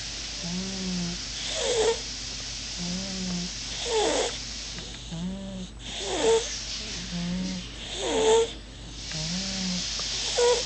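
Sleeping baby snoring in a regular rhythm, a breath about every two seconds: each one a low steady drone followed by a louder, higher-pitched sound that falls away, five times.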